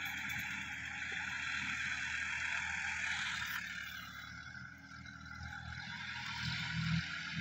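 Sonalika DI-50 RX tractor's diesel engine running steadily under load as it pulls a rotary tiller through the soil. The sound eases off a little midway and builds again near the end.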